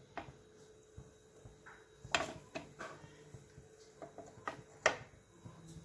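A few sharp clicks and knocks from cookware being handled at the stove, the loudest about two seconds in and near the end, over a faint steady hum.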